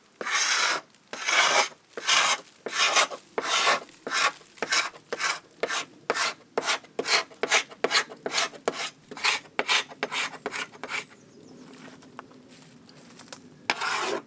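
Scraper stripping old paint off a wooden boat hull: repeated rasping strokes, about two a second and getting quicker, stopping about eleven seconds in, with one last stroke near the end.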